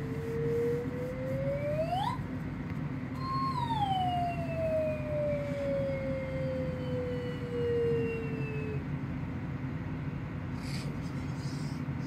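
A single long siren-like tone that rises slowly, climbs sharply about two seconds in, breaks off briefly, then slides steadily down over about five seconds before stopping, over a steady low hum.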